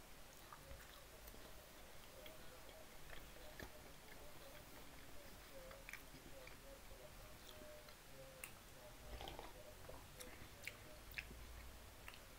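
Faint close-up chewing, with scattered small mouth clicks.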